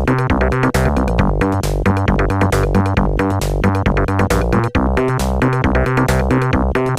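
Electronic outro music: synthesizer with a drum-machine beat, steady and loud.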